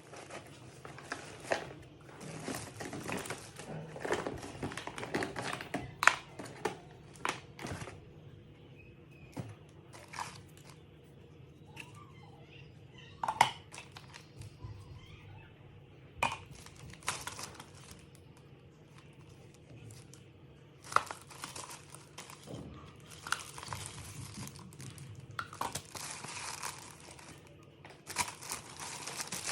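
Packaging being handled and unwrapped: crinkling and tearing in irregular bursts, with a few sharp clicks, the loudest about six seconds in and again about thirteen seconds in.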